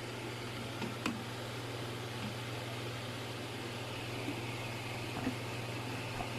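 Electric food chopper's motor running steadily, a low even hum under a steady whirring noise, with a few faint clicks about a second in.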